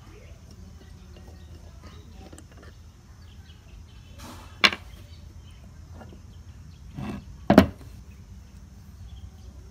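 Metal parts of a rusty staple gun being handled and taken apart: faint ticks, a sharp click about halfway through, then two knocks close together as the end cap assembly comes out of the housing. A steady low hum lies underneath.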